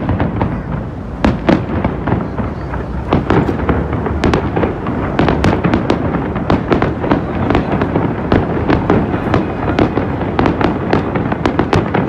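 Aerial fireworks shells bursting in quick succession: a dense, unbroken run of loud bangs over a continuous rumble.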